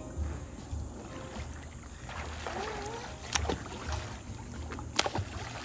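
Water splashing as a swimmer does front crawl in a pool, with two sharp slaps of water about three and a half and five seconds in, over a low rumble.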